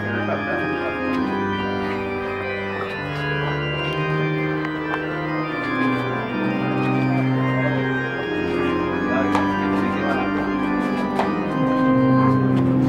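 Organ playing slow, sustained chords, each held for a second or two before moving to the next.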